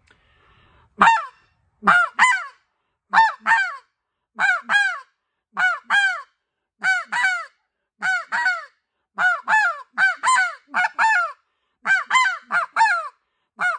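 NoCo White Out snow goose call blown with a tongued "da-ta" air presentation, giving the snow goose bark: short high notes, mostly in pairs and a few in threes near the end, about one group a second. Each note rises and then drops in pitch.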